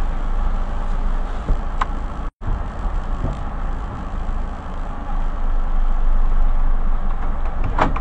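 Vehicle engine idling, heard from inside the cab as a steady low rumble. A sharp click comes about two seconds in and another near the end, and the sound cuts out for an instant just after the first click.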